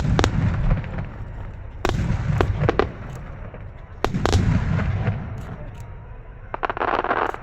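Aerial firework shells bursting in a starmine display: about six sharp booms in clusters near the start, about two seconds in and about four seconds in, each trailing off in a low rumbling echo. A brief dense hiss comes near the end.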